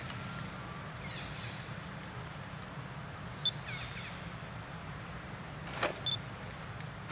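Steady low rumble of outdoor background noise, with a few faint high chirps and one short click about six seconds in.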